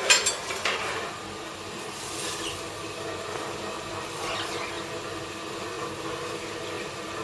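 A few short clinks and scrapes from glassblowing work in the first second, then a steady rushing hum of the glass studio's hot-shop equipment.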